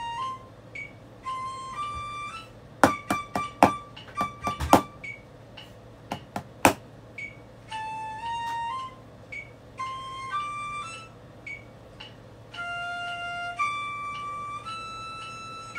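Drumsticks striking a rubber practice pad, a run of sharp taps about three to five seconds in and a couple more around six seconds, over a recorded flute melody playing back from a phone.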